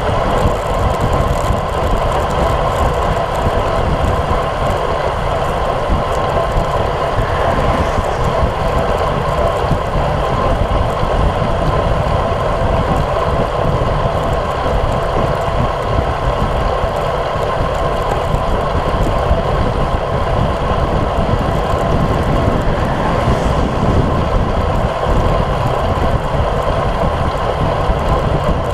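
Steady wind noise buffeting an action camera's microphone on a road bike riding at about 35 km/h, mixed with the tyre and road noise of riding on wet pavement.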